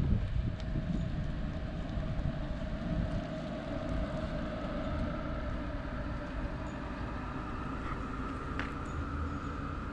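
Tesla Model 3 creeping up a driveway at low speed: a low rumble of tyres on asphalt with a steady electric hum, a higher tone joining the lower one about five seconds in.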